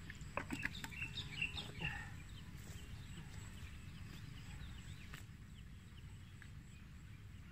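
Clicks and rustles of a nylon cast net and small fish being handled by hand, bunched in the first two seconds, over a steady low rumble like wind on the microphone. Faint short high chirps come and go throughout.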